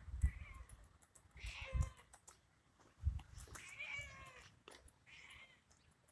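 Hungry Siamese cat meowing for food: about four short meows, the strongest about four seconds in. A few low thumps are mixed in between the meows.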